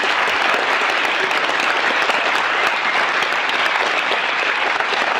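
Audience applauding steadily, a long round of applause from a large crowd.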